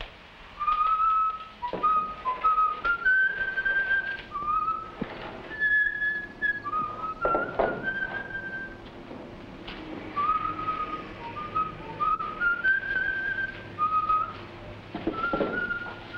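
A man whistling a simple tune in clear single notes, the opening phrase coming round again about ten seconds in. A few dull knocks of things being handled sound now and then.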